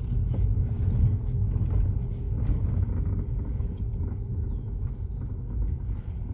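Car driving slowly, heard from inside the cabin: a steady low engine and road rumble.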